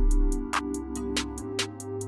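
Background music with an electronic beat: regular sharp hi-hat and snare hits over deep, held bass notes.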